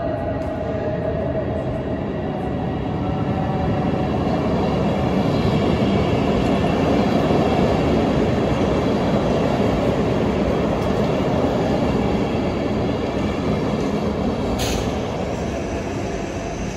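Stadler KISS ESh2 double-deck electric train running past close by, its wheel and running noise swelling to a peak about halfway and easing off. A short sharp click comes near the end.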